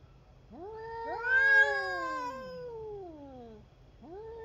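Two cats caterwauling at each other in a territorial standoff: long, drawn-out overlapping yowls that sag in pitch as they trail off, loudest about a second and a half in. A new yowl starts near the end.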